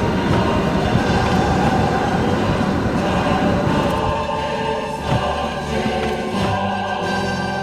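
Music with choir-like singing: sustained voices over a steady backing.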